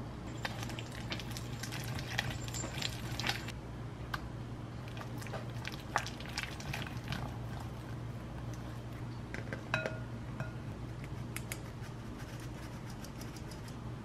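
Black silicone whisk beating an egg into creamed butter in a glass mixing bowl: quick clicks and taps of the whisk against the glass, thickest in the first few seconds, with one short ring from the bowl near ten seconds in, over a low steady hum.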